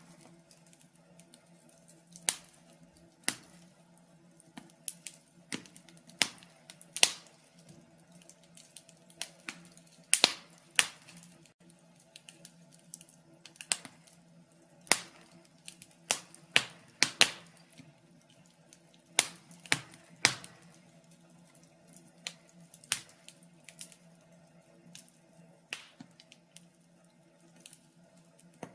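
Wood fire crackling in a fireplace: irregular sharp pops and snaps of burning wood, some much louder than others, over a faint steady low hum.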